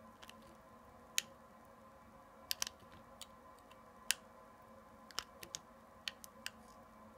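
Snap-off utility knife blade shaving thin slices off a bar of soft glycerin soap, giving a dozen or so crisp, irregularly spaced clicks.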